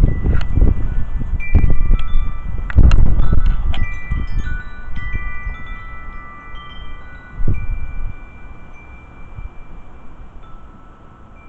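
Wind chimes jangling in gusty storm wind, many metal tones struck in a flurry over the first few seconds and ringing on. Strong gusts of wind rumble loudly under them, rise again about seven seconds in, then ease as the chimes die away.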